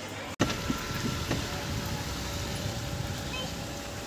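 Steady rumble and hiss of road traffic and vehicle noise, following an abrupt break in the sound about half a second in.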